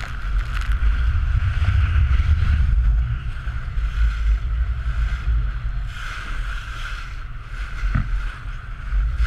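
Outboard motor running steadily as an inflatable boat speeds over choppy water, with water splashing against the hull and heavy wind buffeting on the microphone.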